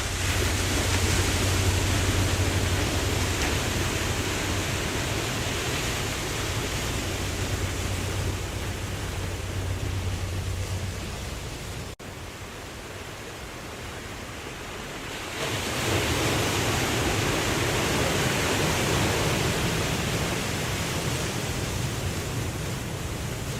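Ocean surf washing steadily in a continuous rush of noise. It cuts out for an instant about halfway through, comes back quieter, then swells up again as a wave surges in a few seconds later.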